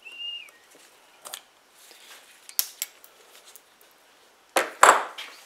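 Pliers and small metal carburetor parts being handled on a workbench: a brief high squeak at the start, a few light metallic clicks, then a louder clatter near the end.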